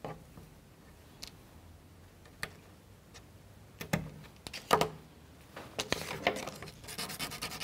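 Scattered light clicks and taps of wooden toothpicks and a craft knife handled and cut on a plastic cutting mat, the sharpest about four and five seconds in. From about six seconds in comes a denser run of scratching and rustling.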